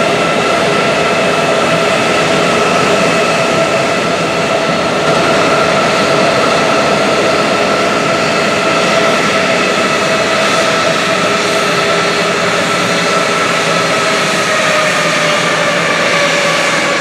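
Airbus A320's two IAE V2500 turbofan engines running at low taxi power as the airliner rolls past: a steady whine over engine roar, its pitch sagging slightly near the end.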